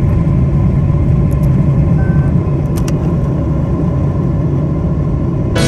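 Airliner cabin noise: a loud, steady low rumble of the jet engines and airflow, with a couple of faint clicks.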